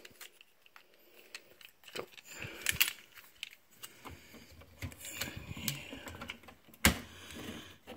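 Scattered plastic clicks and rustling from handling an Efergy clip-on current sensor clamp as it is fitted around a main supply wire in a breaker panel, with one sharper click near the end.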